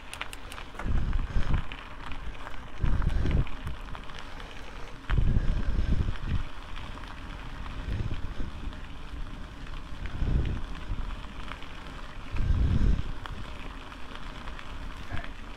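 Wind buffeting the microphone of an action camera on a moving motorcycle: about five uneven gusts of low rumble over a steady hiss of riding noise.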